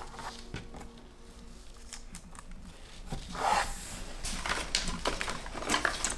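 Baking paper rustling and crinkling as it is folded over a wooden palette and smoothed flat by hand, with a louder rubbing swish about three and a half seconds in.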